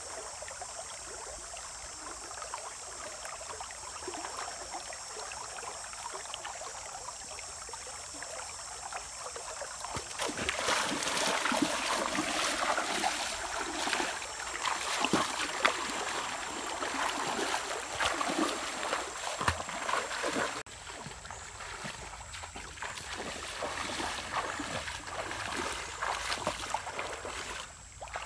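A person wading through a shallow stream, water sloshing and splashing around the legs with small irregular splashes. This becomes louder about a third of the way in, after a quieter stretch of outdoor ambience. A steady high-pitched drone runs underneath.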